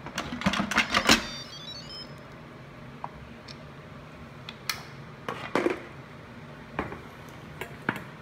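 Instant Pot lid twisted to unlock and lifted off the cooker: a quick cluster of plastic and metal clicks and clatter in the first second or so, with a brief high metallic ring. A few scattered knocks follow over the steady low hum of a kitchen vent fan.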